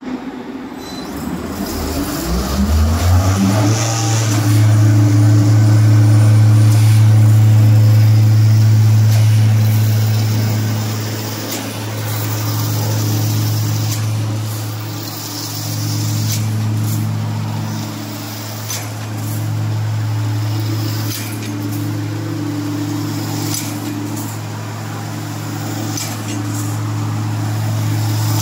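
Automatic wire straightening and cutting machine running: its motor spins up over the first few seconds to a steady hum. Sharp clicks come every two to three seconds as the cutter chops off each length of wire.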